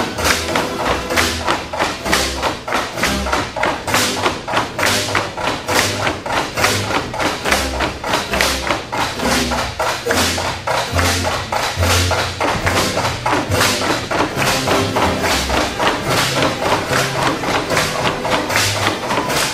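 Tinikling bamboo poles knocked on their wooden blocks and clapped together in a steady rhythm, several knocks a second, over Filipino folk-dance music.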